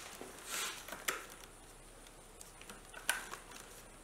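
Gloved hands handling plastic coolant hoses and a transformer inside an induction forge cabinet: scattered soft clicks, taps and rustles, with the sharpest click about three seconds in.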